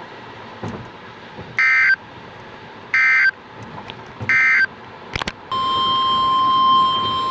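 NOAA Weather Radio Emergency Alert System (SAME) header: three short bursts of warbling data tones about a second and a half apart. After a click, the single steady weather-radio warning alarm tone starts about five and a half seconds in, signalling that a warning follows.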